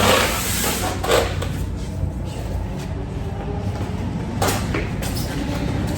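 Heavy metal drill press being heaved and shifted by two people: a few sharp knocks and scrapes, near the start, about a second in and again past four seconds, over a low rumble.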